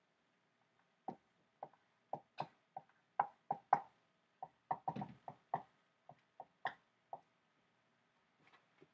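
Dry-erase marker squeaking and tapping on a whiteboard while writing, a quick run of short strokes that stops about two seconds before the end.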